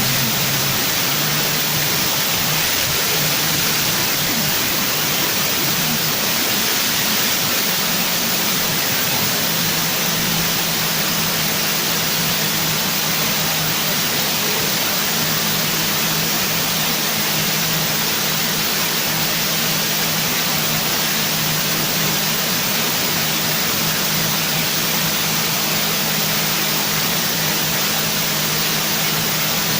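Loud, steady hiss with a faint low hum underneath, unchanging throughout.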